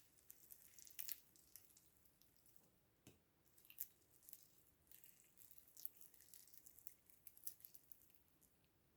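Slime being handled and squished: faint, scattered sticky crackles and clicks, with a few slightly louder pops about a second in and near the middle.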